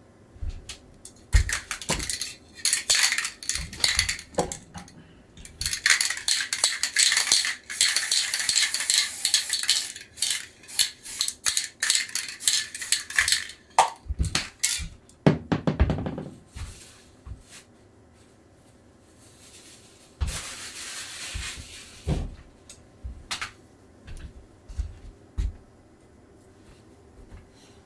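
Silkscreen printing work sounds: a run of clinks, knocks and scrapes as hard tools and containers are handled, with a long stretch of steady noise in the middle and a shorter one later.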